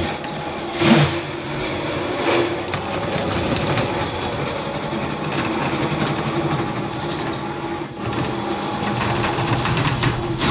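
Electric drain-cleaning machine running steadily, its spiral cable turning and rattling inside a cast-iron drain pipe as it is fed in to clear a blockage. A brief louder clatter comes about a second in.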